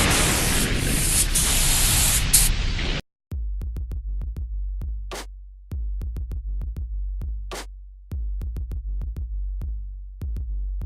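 Intro music: a loud rushing noise sweep that cuts off about three seconds in, then an electronic beat with heavy bass and sharp drum-machine hits.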